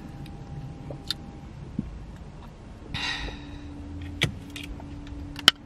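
Small objects handled in a car's cabin while searching for misplaced things: scattered clicks and taps, a short rustle about three seconds in, and a sharp click near the end, over a faint steady hum.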